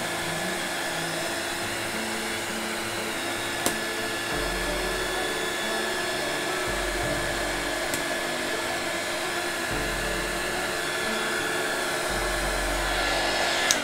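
Small handheld heat gun blowing steadily while drying a freshly applied vinyl sticker on a plate. It cuts off suddenly at the very end.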